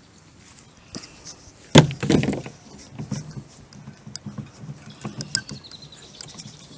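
Fallen sticks being handled during yard cleanup: one sharp wooden knock about two seconds in, a brief rattle of sticks right after, then scattered small clicks and rustling in the grass.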